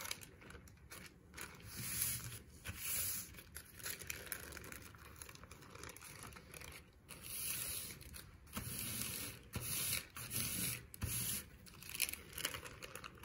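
Deli paper crinkling and rustling in several bursts as a sheet covered in wet paint is pressed onto paper and peeled back off, with a sticky tearing scrape as it lifts from the paint.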